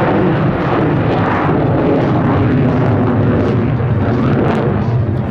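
F-35A Lightning II's single Pratt & Whitney F135 engine in afterburner: loud, continuous jet noise with rapid crackle as the fighter climbs steeply into a high-alpha loop.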